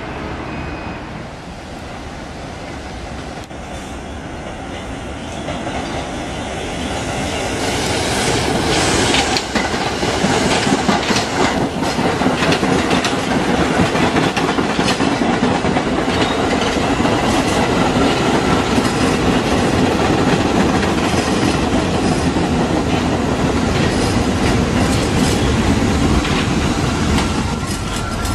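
New York City subway train running past close by: a steady rumble and clatter of steel wheels on the rails that builds over the first several seconds and then holds loud. A thin wheel squeal comes in near the end.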